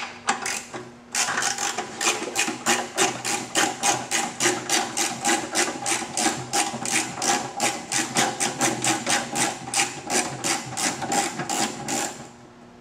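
Socket ratchet clicking in a steady rhythm of about four clicks a second while backing out a gas tank mounting bolt. The clicking starts about a second in and stops shortly before the end.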